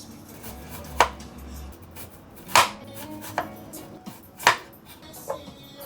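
Kitchen knife chopping on a cutting board: five separate strokes at an uneven pace, the first, second and fourth the loudest.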